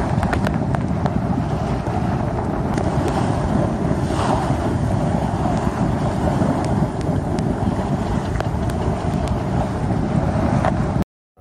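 Heavy wind buffeting the microphone, with water rushing and splashing along the hull of a J/24 keelboat under sail. The sound is a steady, loud rush that cuts off suddenly near the end.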